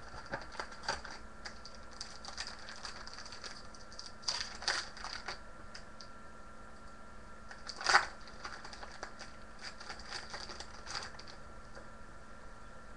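Trading cards and their foil pack wrappers being handled: a string of light clicks and rustles as cards are flipped through, with a few louder crinkles about four seconds in and a sharper one about eight seconds in.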